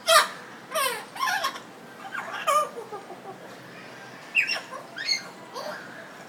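African grey parrot giving a string of short whistles and squawky calls, several of them sliding down in pitch, with sharp clicks between.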